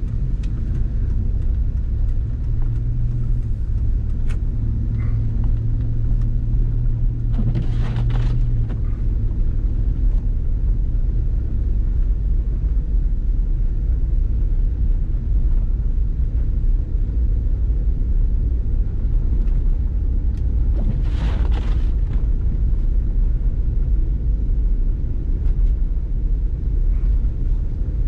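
Steady low rumble of engine and tyre noise heard inside a vehicle driving on snow-covered roads. Two short swells of hiss come about eight and twenty-one seconds in.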